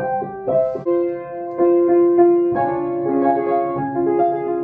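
Piano playing a slow melody over sustained chords, with single notes struck every half second to a second and left ringing.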